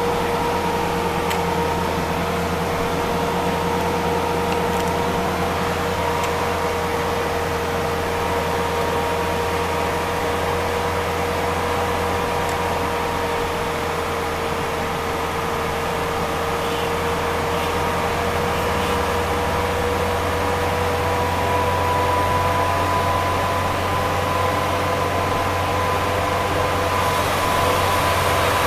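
Steady engine and road drone heard from inside a vehicle's cabin while it cruises on a motorway, with a constant high whine over a low hum. It gets slightly louder over the last few seconds.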